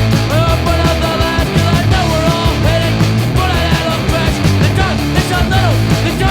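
Loud rock music with a driving drum beat, heavy low end and a sliding melodic lead line.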